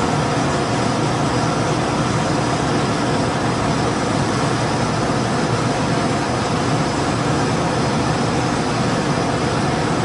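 Pulse-combustion gas furnace running, a steady rumble and rush of blower air that doesn't change.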